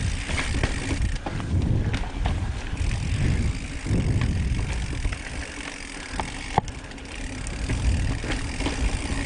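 Mountain bike rolling over rocky singletrack: a constant rumble of tyres and wind buffeting the bike-mounted camera's microphone, with rattles and ticks from the bike. A single sharp click about two-thirds of the way through stands out.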